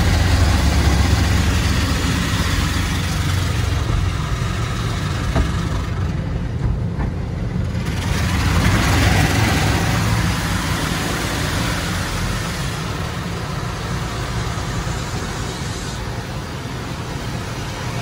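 Belanger tunnel car wash equipment spraying water onto a car, heard from inside the cabin: a steady hiss of water hitting the body and glass over a deep rumble that is strongest at first. The hiss thins briefly about six seconds in, then comes back louder.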